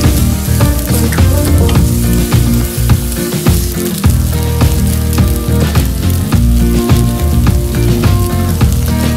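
Sliced onions sizzling in oil in a frying pan as they are sautéed until soft. A wooden spatula turns them, giving frequent short scrapes and clicks against the pan.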